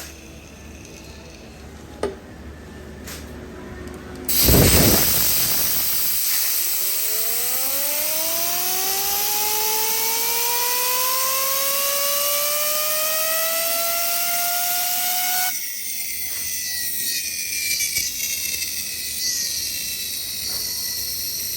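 A sudden blast of hissing air, then a whine that rises steadily in pitch for about ten seconds as a part spins up. This fits a crankshaft bearing being spun for a noise test. About three-quarters of the way through the whine stops and a high hiss carries on.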